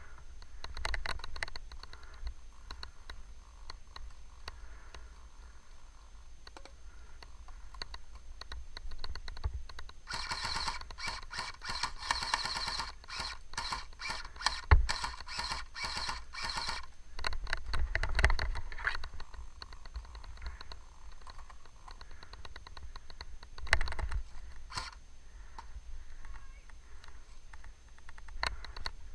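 Airsoft guns firing in rapid clicking strings, with a long dense run of shots from about ten to seventeen seconds in and a few single sharp knocks later.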